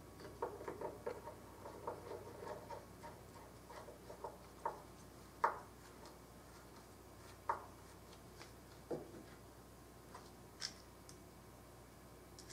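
Small screwdriver fastening a wooden grip blank down onto a plastic jig: faint clicks and taps of the driver and screws, a quick flurry in the first few seconds, then single clicks every second or two.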